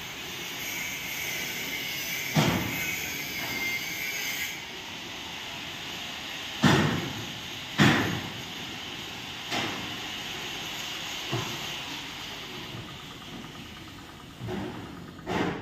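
Steady hissing noise with a handful of sharp metal clanks on steel mesh floor panels, the loudest about seven and eight seconds in.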